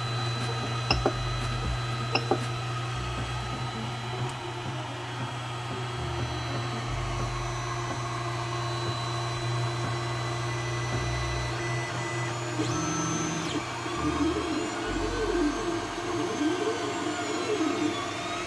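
Creality Ender 3D printer running: its fans hum steadily, and the stepper motors whine in rising and falling tones as the print head moves and lays down the first layer. There are a few sharp clicks in the first couple of seconds.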